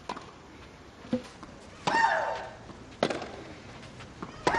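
Tennis rally: racket strikes on the ball about every second, two of them with a loud shrieking grunt from the hitter that falls in pitch, about two seconds in and again at the end.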